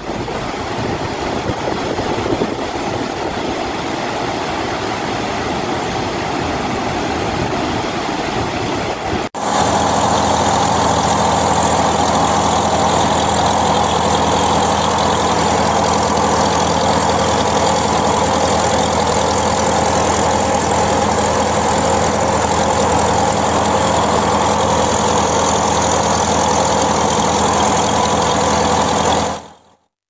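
Water rushing through the open sluice gates of a dam in flood, a steady roar. About nine seconds in it cuts to a boat's engine running steadily out on the flooded river, and that stops abruptly near the end.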